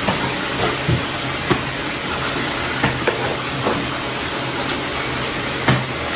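Chicken pieces coated in curry powder sizzling in a pan: a steady hiss with scattered small clicks and pops.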